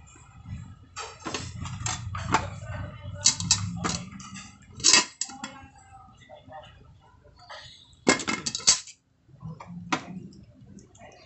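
A puppy eating cooked rice from a plastic tray: irregular clusters of sharp clicks and knocks from its chewing and from its muzzle against the tray.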